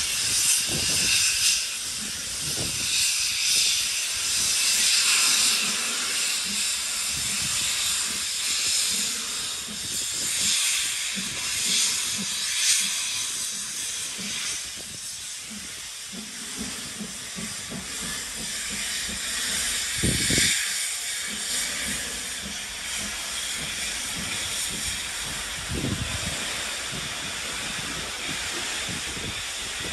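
Steam locomotive hissing as steam escapes, a loud hiss that swells and fades several times.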